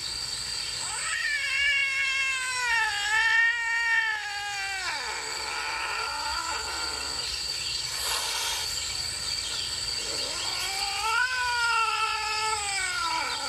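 Cat yowling in a threat during a standoff with another cat: two long, wavering, drawn-out yowls, one from about a second in and another near the end.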